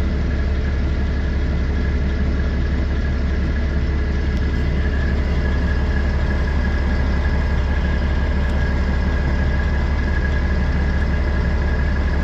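Truck engine idling steadily: a constant low rumble with a thin, steady whine above it.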